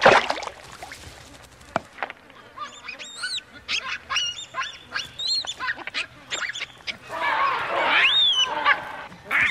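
A sudden loud splash at the start, then baboons screaming and giving shrill alarm calls that rise and fall in pitch, in distress at a crocodile attack. The calls thicken into a dense burst of screaming near the end.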